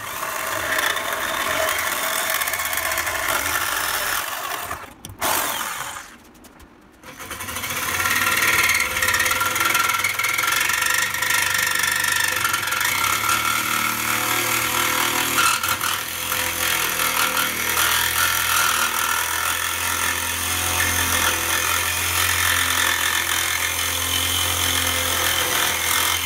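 DeWalt jigsaw with a metal-cutting blade sawing through quarter-inch 6061 aluminum plate, stopping for about a second and a half some six seconds in, then cutting steadily again.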